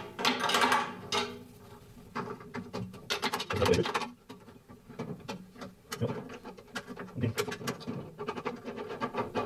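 A steel wrench clicking and clinking against a screw and the metal body of a bandsaw's upper blade guide as the screw is loosened and the guide is handled. The sound comes as clusters of short metallic clicks and light rattles.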